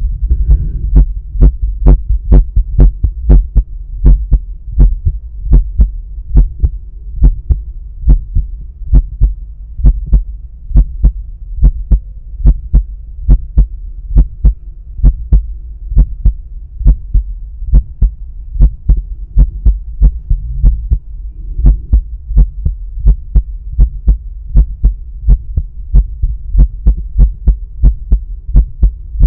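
A man's resting heartbeat heard through a stethoscope placed at the pulmonic area: steady, evenly spaced beats over a constant low hum from the stethoscope pickup.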